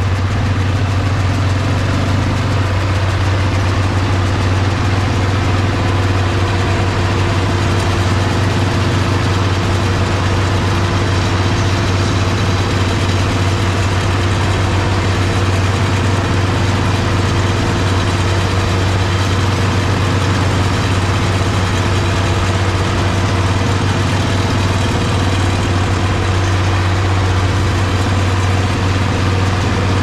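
Farm tractor engine running steadily at a constant speed, with a strong low hum and no change in pitch.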